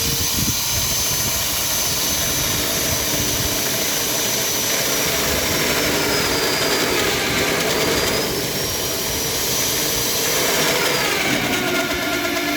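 Dongcheng DJC36 magnetic-base core drill's electric motor running with a steady high whine that sags in pitch and recovers around the middle, then drops again near the end.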